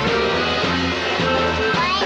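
A live band playing an up-tempo instrumental number, with a steady bass rhythm and a rising slide near the end.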